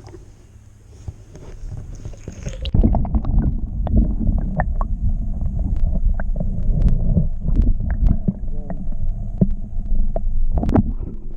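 Heavy low rumbling noise on the microphone with many scattered clicks and knocks, starting about three seconds in, as when the camera is handled, buffeted or dipped in water.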